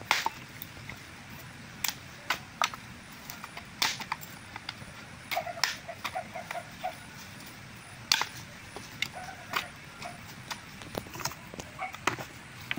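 Dry firewood and bamboo pieces knocking and clattering against each other as they are struck and piled by hand: irregular sharp wooden knocks, one every second or two.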